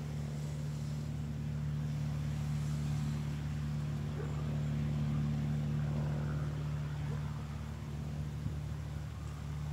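A steady low hum with a faint hiss behind it, holding an even level throughout.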